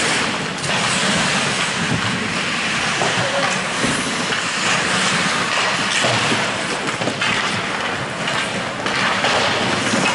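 Ice hockey game in play in a rink: a dense, steady noise of skates and sticks on the ice.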